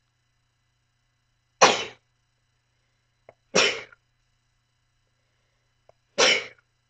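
Three sneezes, each short and sharp, a couple of seconds apart, with a faint click just before the second and third.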